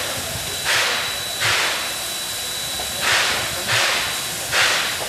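JNR Class C10 steam tank locomotive standing in steam, giving off short hissing puffs of steam at an uneven rhythm, roughly once or twice a second.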